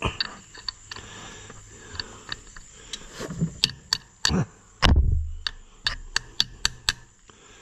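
Ratchet wrench clicking in quick strokes, about four clicks a second, as it works a tight drain plug loose on the rear end of an Oliver 1250 (Fiat 415) tractor. A heavy thump comes about five seconds in.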